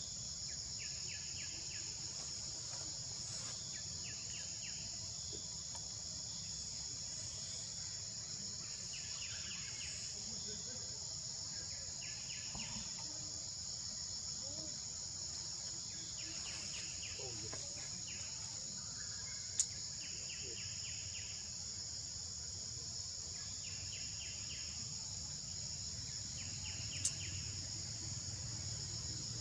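Forest insects keep up a steady, high-pitched drone. Short pulsed chirps a little lower in pitch repeat every few seconds over it. Two sharp clicks come in the second half.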